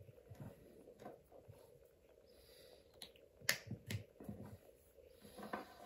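A few scattered small clicks and light taps of parts being handled on an RC car, the sharpest about three and a half seconds in.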